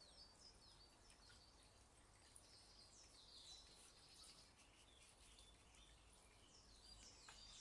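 Near silence with faint birdsong: short, high, falling chirps in small clusters near the start, around the middle and again near the end.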